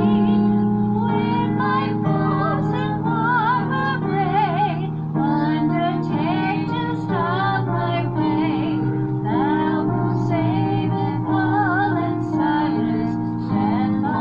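A woman singing a slow hymn melody with wide vibrato over sustained accompanying chords.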